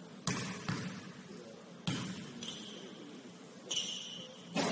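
A basketball hitting a gym floor four times at uneven intervals, each bounce echoing in the hall, with a short sneaker squeak shortly before the last bounce.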